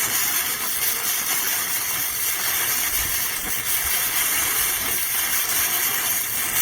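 AZZUNO MIG 130F gasless flux-core MIG welder arc burning: a steady, loud hiss and crackle that had struck suddenly just before.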